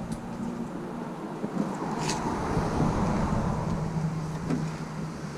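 A car's engine running with a steady low hum, heard from inside the cabin, with road or engine noise swelling and easing in the middle.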